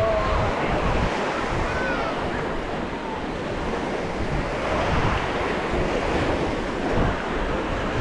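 Small waves breaking and washing on a sandy shore, with wind buffeting the microphone.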